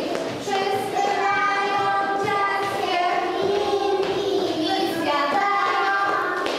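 Group of young children singing a song together, in held, sustained notes.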